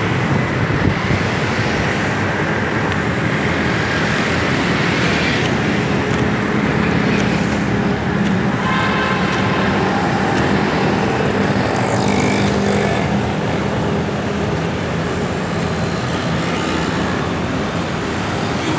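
Busy city road traffic: motorcycles, auto-rickshaws and cars running and passing steadily, with a brief higher tone about nine seconds in.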